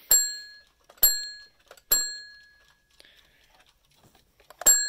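An alarm clock's metal bell struck by hand, single dings that ring out and fade: three about a second apart, then after a pause a quick double strike near the end.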